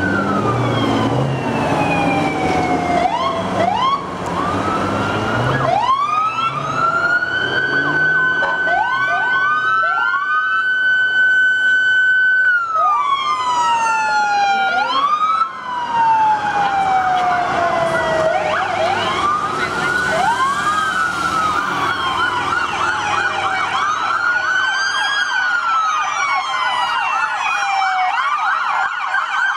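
Several police car sirens sounding together as police vehicles drive past: overlapping wails that rise, hold a high note for a few seconds and fall away, with a rapid yelp joining in for the last few seconds.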